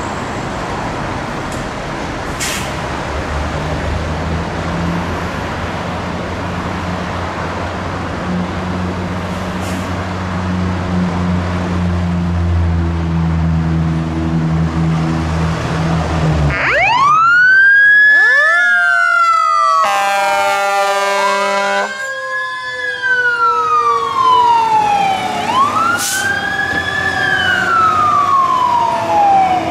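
A 2018 Spartan Metro Star / Smeal fire engine's diesel engine runs as the truck pulls out. A bit over halfway through its siren starts up: a wail that climbs and then falls slowly, over and over. A couple of seconds of steady air horn blasts break in shortly after the siren starts.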